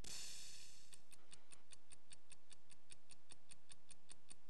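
A brief hiss, then light, regular ticking at about five ticks a second: a clock-like ticking effect in a TV commercial's soundtrack.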